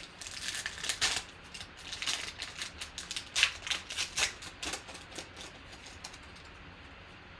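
Trading cards being handled and flipped through by hand: a quick, irregular run of card clicks and rustles that thins out near the end.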